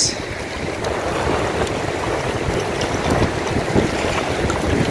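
Wind buffeting the microphone over the steady hiss of heavy rain, with small waves lapping at the muddy bank.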